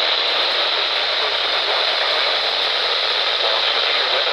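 Steady radio static from a weather radio receiver: an even, unbroken hiss with no voice, as loud as the broadcast speech around it.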